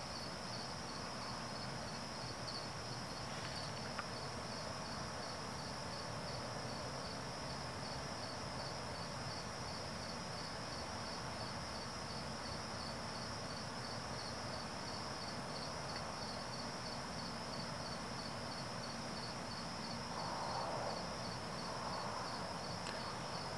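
Crickets chirping in a steady, even rhythm of a few chirps a second, over a continuous higher insect trill.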